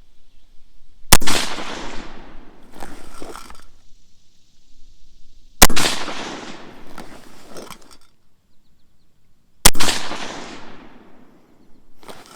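Three single rifle shots from a Smith & Wesson M&P 15 (AR-15, 5.56 mm), about four seconds apart, each echoing off for about a second: unhurried slow-fire shots, the last of a ten-shot string. Lighter rattles of the rifle being handled follow the shots.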